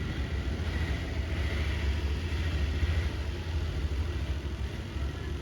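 A steady low mechanical hum and rumble with a faint hiss over it.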